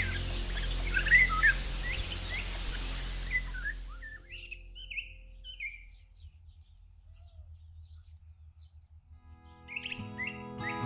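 Small songbirds chirping and twittering, many calls overlapping for the first few seconds, then only a few scattered chirps.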